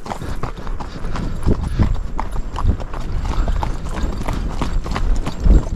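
Hooves of several horses and pack mules clip-clopping on a dirt road, an uneven run of knocks, with one heavier thump near the end.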